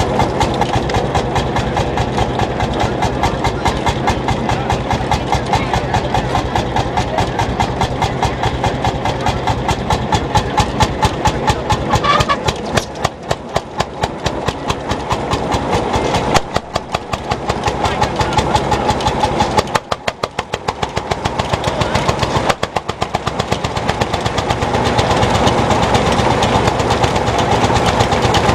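Vintage tractor engine running with a steady, even beat of separate strokes, the sound dipping a few times midway.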